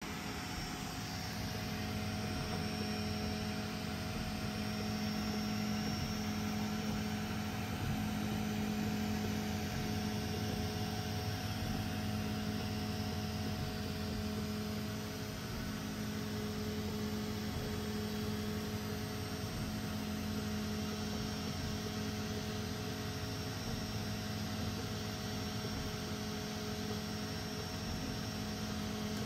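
3D printers running mid-print, a Snapmaker 2.0 A350T and a Prusa Mini+: a steady hum of cooling fans and stepper motors over an even hiss.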